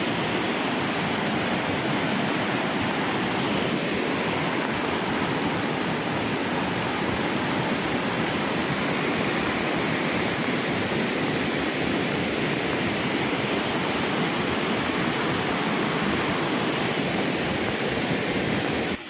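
Steady rush of a rain-swollen hill stream running in spate, an even wash of water noise that cuts off suddenly at the end.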